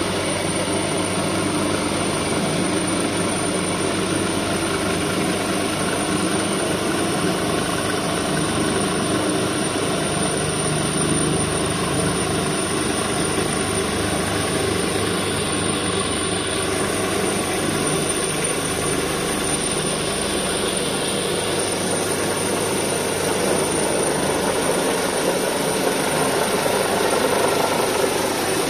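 Search helicopter flying low overhead: steady rotor thrum and turbine whine, growing a little louder near the end as it comes nearly overhead.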